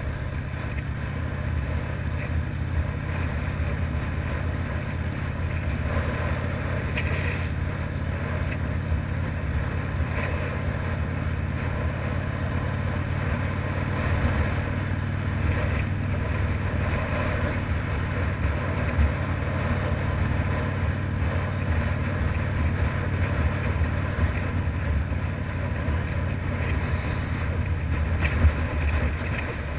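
Harley-Davidson FXRDI V-twin engine running steadily at road speed, with wind rushing over the microphone.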